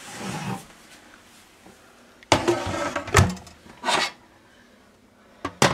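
Metal inner pot of an electric pressure cooker being set down into its base: a sudden clunk about two seconds in, then a few more knocks and scrapes as it is settled in place.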